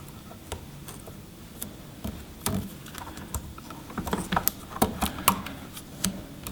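Bare copper ground wires and black electrical tape being handled and wrapped: irregular small clicks and crackles, busiest from about four seconds in.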